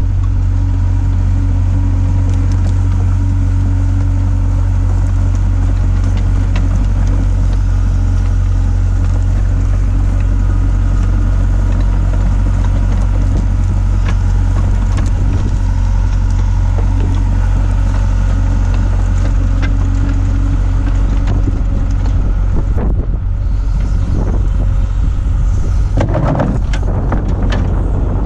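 Hitachi hydraulic excavator's diesel engine running steadily at a constant, deep pitch, with a burst of irregular clattering near the end.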